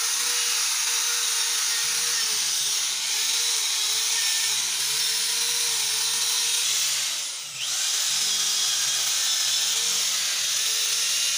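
Handheld electric power tool running at high speed against the casing of a manual transmission: a steady high whine with a rasping hiss. About two-thirds of the way through it briefly winds down and spins back up.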